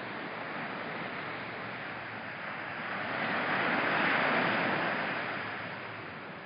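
Small ocean surf breaking and washing up the beach: a steady rushing hiss that swells to a peak about four seconds in and then fades.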